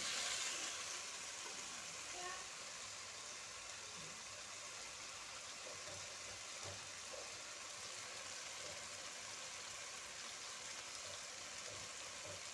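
Onions and spices frying in a large cooking pot, a sizzle that is louder at the start and then settles to a steady hiss.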